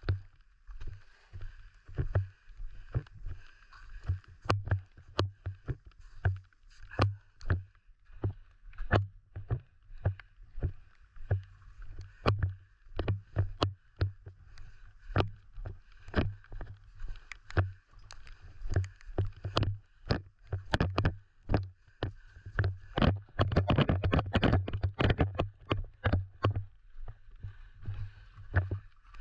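Footsteps and gear handling of an airsoft player on the move: low thuds at about a walking pace mixed with scattered sharp clicks and knocks, which bunch together for a few seconds near the end.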